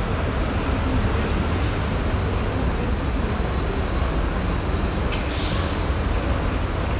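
Steady dense city traffic noise, a low rumble of buses and other vehicles, with a short hiss about five seconds in.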